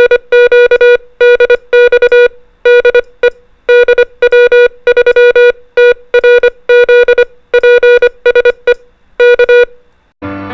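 Morse code beeps: a single tone keyed on and off in dots and dashes, sending a general CQ call and the callsign DW3TRZ, ending with K, the invitation for another station to transmit. The keying stops near the end.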